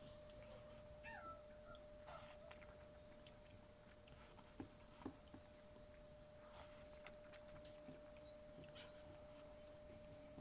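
Near silence: faint clicks and smacks of eating rice by hand from a metal plate, over a thin steady hum. About a second in there is a brief falling squeak.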